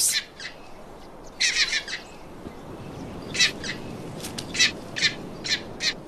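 Male rock hyrax singing, the song a dominant male uses to court females: one drawn-out high call, then a quick run of short, high-pitched calls. A faint steady hiss lies underneath.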